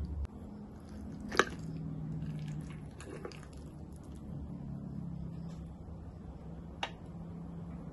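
Fork and spoon working through a cream-sauced chicken leg on a ceramic plate: soft wet scraping of the sauce and meat, with a sharp clink of metal on the plate about a second and a half in and another near the end. A faint low hum runs underneath.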